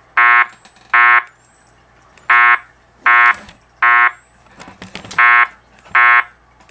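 Wheelock fire alarm speaker strobe sounding the temporal-three evacuation tone: a buzzy horn beep repeated in groups of three, with a pause of about a second between groups.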